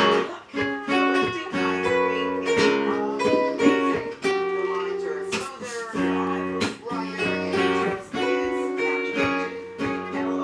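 Music: acoustic guitar strumming chords.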